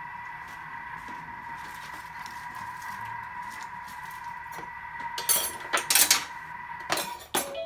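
Thermomix motor whining at a steady pitch as it stirs the soup, stopping near the end. About five seconds in, a few loud clatters of kitchen utensils against the counter.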